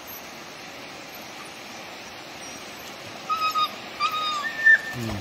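Steady rush of stream water, and from about three seconds in, three short high whines from an excited hunting dog, the last one higher.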